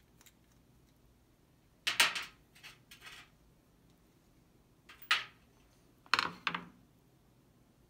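Clicks and knocks of a small-engine carburetor and a hand tool being handled during disassembly over a metal tray. There are three short groups of sharp clicks, the loudest about two seconds in and the others near the end.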